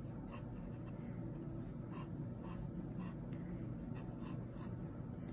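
Mechanical pencil scratching faintly across tracing paper in a string of short drawing strokes.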